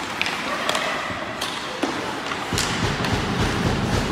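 Ice hockey play on the rink: sharp clacks of sticks and puck at irregular intervals. A low rumble rises about two and a half seconds in.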